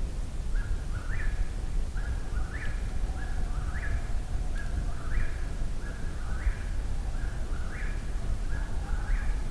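Eastern whip-poor-will singing its repeated three-note "whip-poor-will", the last note rising, about one song every second and a bit. Faint distant coyotes howl underneath.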